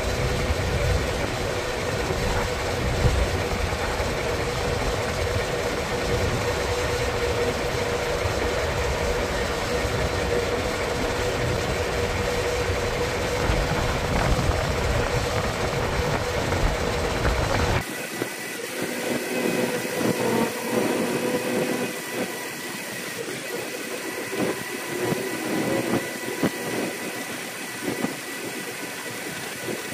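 Heavy diesel semi-truck engine running steadily as the truck is driven up onto a lowboy trailer. About 18 seconds in it cuts off abruptly to a quieter idling engine with scattered clanks.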